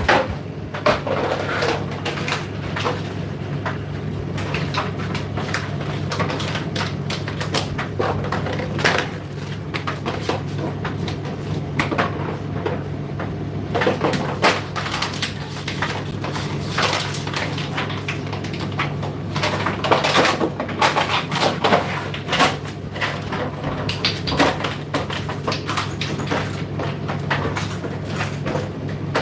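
Indesit IDC8T3 condenser tumble dryer running mid-cycle: a steady motor hum with irregular clicks and knocks as the load tumbles in the turning drum.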